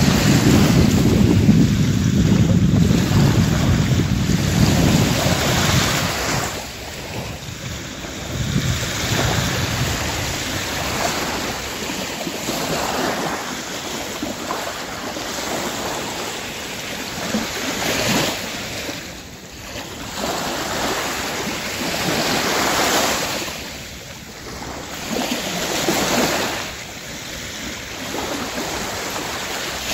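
Small sea waves washing up on a sandy shore, the wash swelling and fading every four to five seconds. Wind rumbles on the microphone during the first few seconds.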